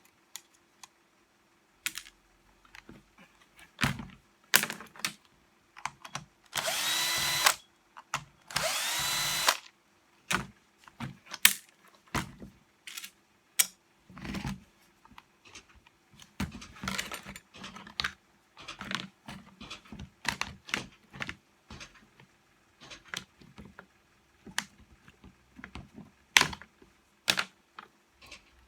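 A small power screwdriver runs in two short bursts of about a second each, its pitch rising as it spins up. Many small clicks and knocks come in between, from the saw being taken apart to reach its motor brushes.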